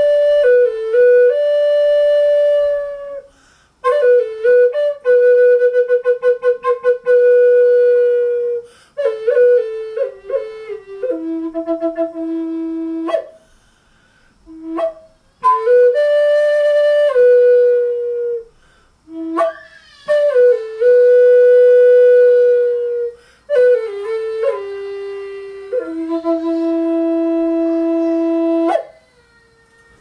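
Native American flute with a one-inch bore, keyed in E, played solo: a slow melody of long held notes and quick ornamental turns in several phrases with short pauses between them. One long note a few seconds in is pulsed rapidly.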